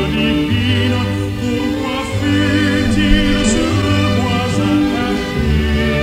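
Choral music: voices singing long held notes with vibrato over a steady sustained bass.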